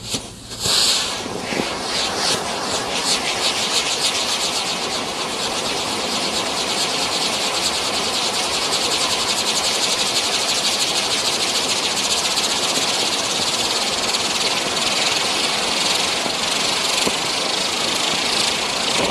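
Brothers Pyrotechnics 'Fiery Eye' Catherine wheel firework lighting with a couple of sharp pops in the first second, then its drivers hissing loudly and steadily with a fast, even crackle as the wheel spins and throws sparks.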